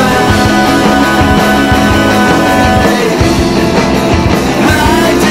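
Indie rock band recording playing an instrumental stretch with no lyrics sung: guitars holding sustained notes over a steady drum beat and bass.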